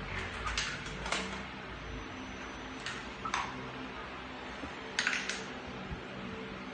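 Pencil scratching on workbook paper in a handful of short strokes, over a low steady hum.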